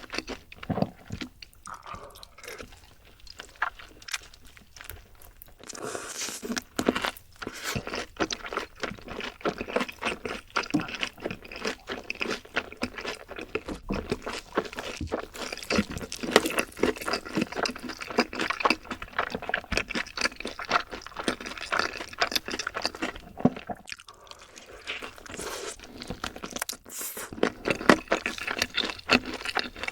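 Close-miked chewing of crispy fried chicken: crunchy bites and wet chewing, quieter for a few seconds early on and again at around 24 seconds.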